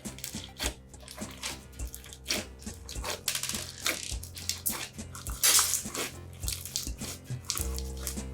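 Wet, sticky slime being squished and stretched by hand, giving many short squelching clicks and a louder wet squish about five and a half seconds in, over soft background music.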